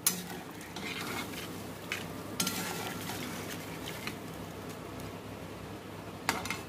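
Metal spatula stirring a watery mix of rice and diced potatoes in a metal kadai, scraping and clinking against the pan now and then over a steady low hiss from the pan on the heat.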